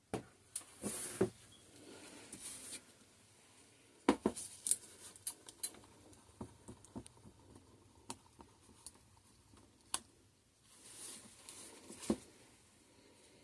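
Soap batter being poured and scraped from a container into a mold: light knocks and clicks of the container and utensils, with a few soft swishes of scraping.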